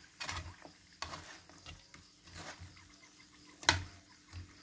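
Metal spatula stirring and scraping sugar-coated sweet potato chunks around a steel wok, a short scrape every second or so, with one sharp metal-on-metal clank near the end.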